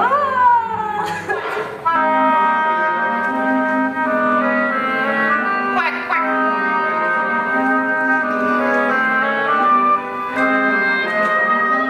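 Orchestral music with held wind and brass notes, broken by a swooping slide in pitch about six seconds in.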